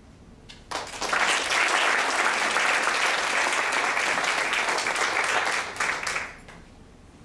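Audience applauding, starting suddenly about a second in and dying away after about five seconds.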